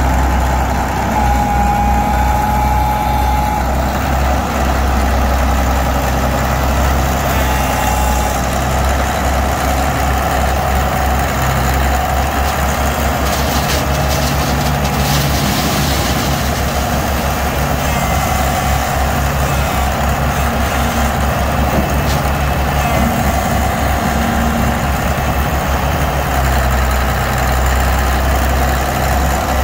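Heavy diesel engine running steadily and loudly, with a deep, even drone. A short rush of hiss-like noise comes about halfway through.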